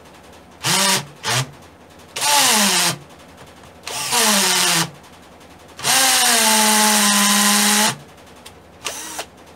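Mondial 21V cordless drill/driver, set to its impact (hammer) function, run into a wooden block in five bursts, each starting with a rising motor whine; the last and longest run lasts about two seconds.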